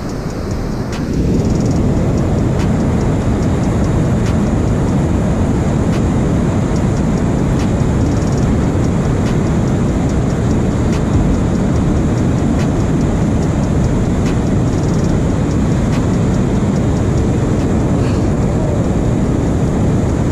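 Water pouring over a dam spillway and churning through the whitewater below: a loud, steady rushing, a little louder from about a second in.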